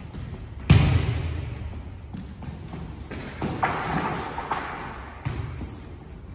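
Volleyballs being struck and bouncing on a hardwood gym floor, the loudest a sharp smack about a second in that echoes around the hall. A few short, high sneaker squeaks come in between.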